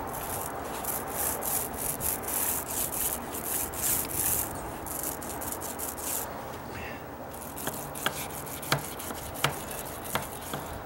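Small paint roller rolling primer back and forth across a wooden deck stair, a wet, scratchy rubbing in quick repeated strokes that eases off after about six seconds. A few sharp clicks follow near the end.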